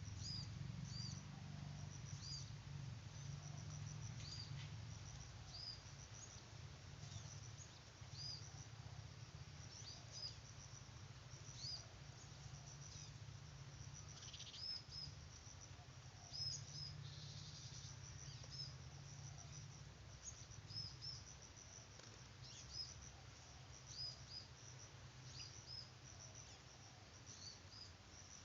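Small birds chirping, short high thin calls repeated every second or two, over a steady low hum.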